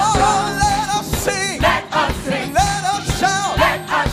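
Gospel choir singing with a live band: a sung melody with vibrato and runs over a steady drum beat and bass.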